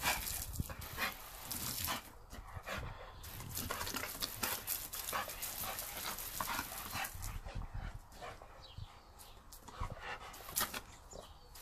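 Garden hose spray hissing and splashing over a Rottweiler puppy as it snaps and bites at the water jet, with the puppy's panting and many short sharp splashes. The spray sound thins out in the last few seconds.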